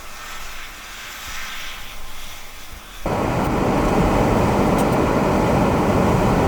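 Blizzard wind: a steady hiss, then about halfway through a sudden jump to loud, low rushing wind noise buffeting the microphone, which keeps going.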